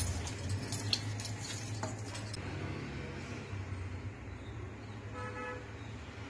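Hands squishing and mixing raw chicken pieces with spice paste in a steel pot, with sharp clicks of bangles against the pot, for the first two seconds or so. A steady low hum runs underneath, and a brief pitched tone sounds about five seconds in.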